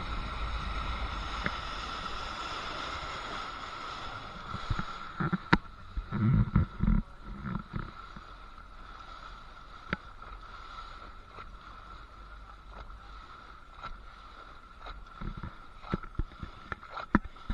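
Water slapping and gurgling against a small boat's hull as it moves slowly over a light chop, heard from close to the waterline. A faint steady whine and wash fade over the first few seconds, and a cluster of louder slaps comes about five to eight seconds in.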